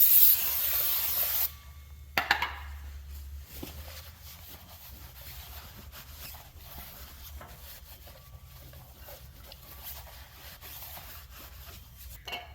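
Aerosol degreaser spray hissing for about a second and a half, used to spray the oil off a clutch or flywheel part. A second, shorter spray follows about two seconds in, then faint rubbing.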